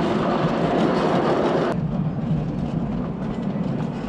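Miniature ride-on train running along its track: a steady, rushing rumble of wheels on rail. About two seconds in, the higher, hissier part of the sound cuts off abruptly, leaving the lower rumble.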